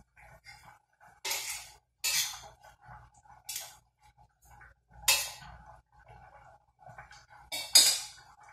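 Prawns frying in butter in a pan on the stove, stirred with a utensil: about six short hissing, scraping bursts that each fade within half a second, over a faint steady hum.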